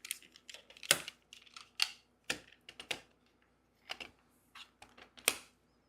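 Plastic magnetic building tiles clicking and tapping as they snap together, are pulled apart and are set down, in about seven irregular sharp clicks.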